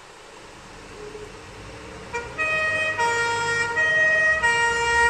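An emergency vehicle's two-tone siren starts about two seconds in, switching back and forth between a lower and a higher pitch and getting louder. Before it comes in there is only a steady rush of heavy rain and floodwater.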